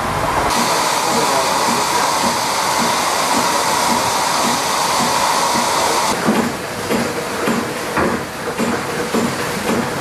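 Steady hiss of steam in a boiler house with a Lancashire boiler in steam. About six seconds in the hiss drops away and irregular clanks and knocks of machinery take over.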